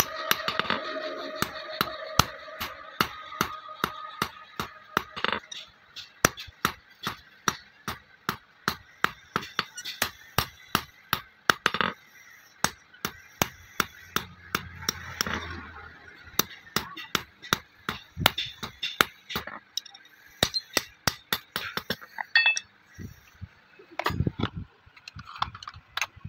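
Hammer blows on a metal dagger blank resting on an anvil: a long run of sharp metallic strikes, about two a second, broken by short pauses.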